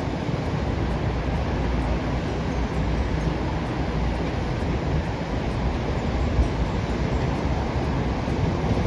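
A train running past, a steady rumbling noise.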